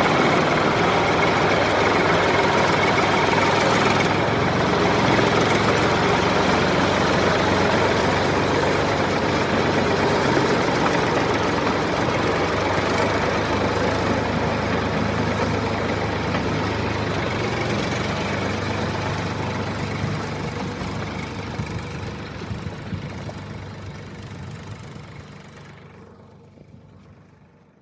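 Tractor engine running steadily with a low, even drone, then fading out over the last several seconds.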